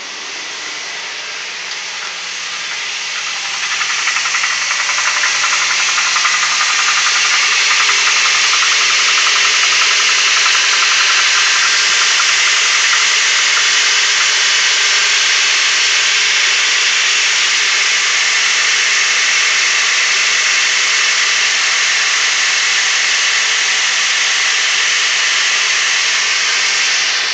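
Toyota 2.7 L 3RZ four-cylinder engine running with a rattle on a cold start; the rattle goes away once the engine warms up. The sound grows louder over the first few seconds, then holds steady.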